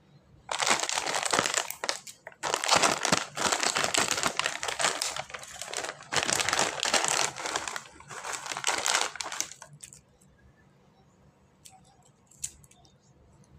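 Plastic snack packaging crinkling as it is handled, in several loud stretches that stop about ten seconds in, followed by a few faint clicks.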